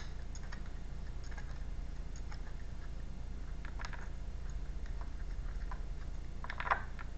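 A deck of tarot cards being handled and shuffled in the hands: scattered light clicks of the cards, with a short louder flurry of card snaps about half a second before the end. A steady low hum runs underneath.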